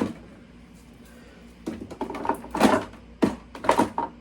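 Containers being shifted and set down on a cabinet shelf: a run of knocks and clatters starting a little under two seconds in.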